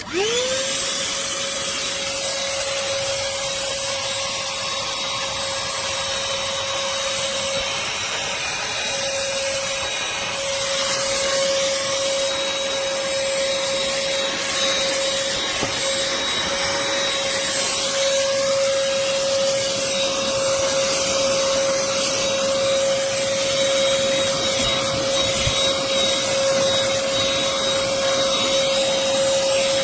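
Black+Decker cordless handheld vacuum switched on, its motor whine rising quickly in pitch and then running steadily with a strong rush of air.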